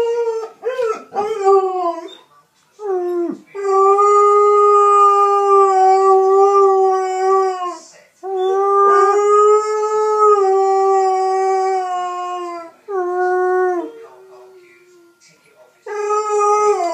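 Six-month-old Alaskan Malamute puppy howling: a few short calls that slide down in pitch, then two long, steady howls of about four seconds each, then shorter howls near the end.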